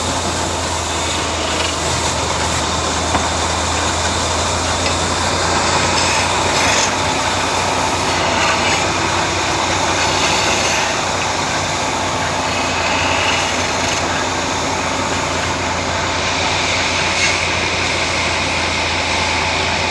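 Woodworking machine running steadily: a constant low motor hum under an even whirring noise, with no strokes or breaks.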